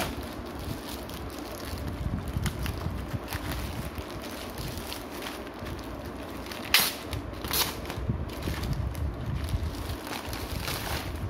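Plastic mailer bags and their clear wrapping film rustling and crinkling as they are handled, with two sharper crackles a little past halfway. A low rumble of handling noise on the microphone runs underneath.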